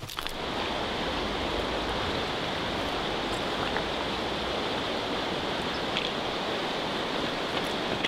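Steady rushing of a mountain river, an even wash of water noise with no changes.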